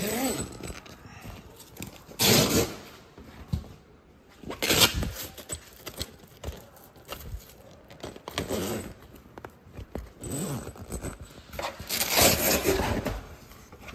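Handling noises: fabric rustling and scraping in separate bursts a second or two apart, with a couple of short creaks.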